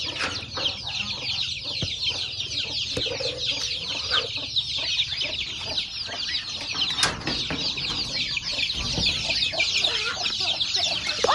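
A flock of young chicks peeping all at once: a dense, unbroken chorus of short, high, falling cheeps.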